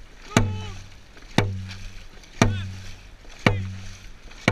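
Dragon boat drum beaten steadily about once a second, five beats, each a sharp hit with a deep booming decay, keeping the paddlers' stroke rate. After each beat comes a short shout.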